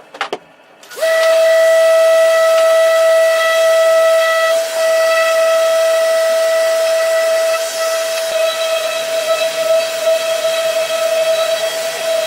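Electric power tool motor running with a steady high whine and hiss. It stops briefly and starts up again about a second in.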